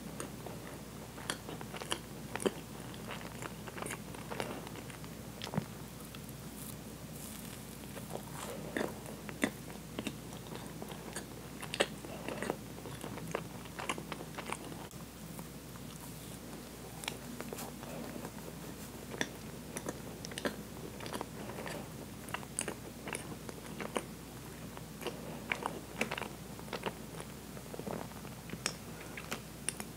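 Close-miked chewing of a soft Twinkie sponge cake with cream filling: irregular wet mouth clicks and smacks, several a second.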